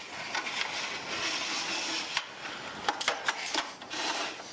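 Scattered sharp clicks and knocks as a Stanley 358 miter box and a 2x4 are handled and set up, over a steady hiss.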